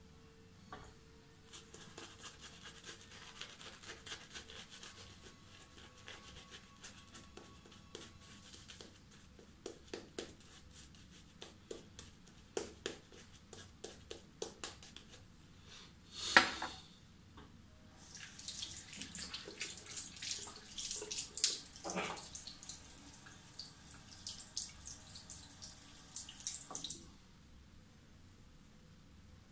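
Muhle R89 safety razor scraping through lathered stubble in short, crackling strokes, in two long runs. A single louder knock about halfway through separates them, and the shaving stops a couple of seconds before the end.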